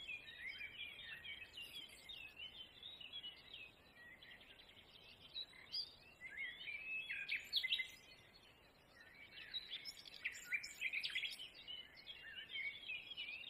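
Small birds chirping: many short, quick chirps overlapping one another, in three busy spells with quieter gaps between.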